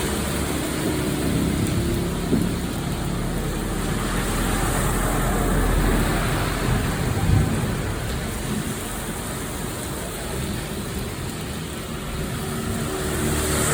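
Steady heavy rain, with a low rumble that swells and fades around the middle.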